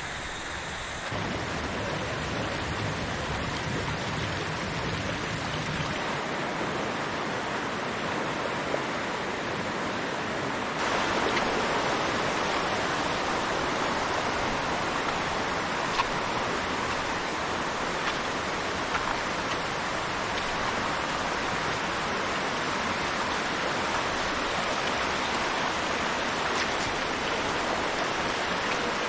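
Rushing water of a rocky forest stream running over small rapids, a steady hiss that gets louder about eleven seconds in.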